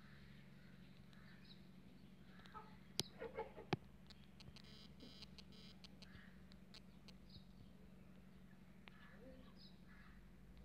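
Near silence: a low steady hum with two sharp clicks about three seconds in, and faint short bird calls now and then.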